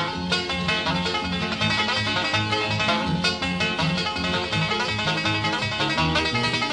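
Instrumental background music with quick plucked-string picking over a steady bass line, in a bluegrass style.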